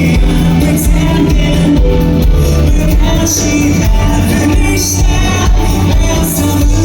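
Rock band playing live with sung vocals, loud and full, recorded on a phone in a concert hall.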